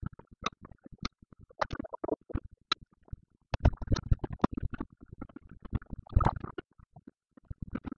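Fast-forwarded room sound picked up by a computer's built-in microphone: a rapid, irregular jumble of clicks, knocks and crackles, sparse at first and denser and louder from about three and a half seconds in, as the computer is handled and moved.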